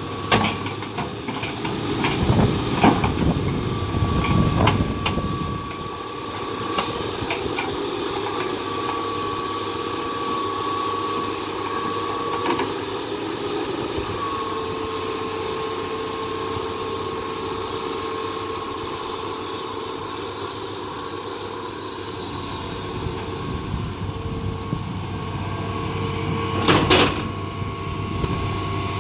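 Crawler excavator's diesel engine running with a steady hydraulic whine as the machine works and swings its upper body round on a lowbed trailer. Metal knocks and clanks come in the first few seconds, and a sharp clank comes near the end.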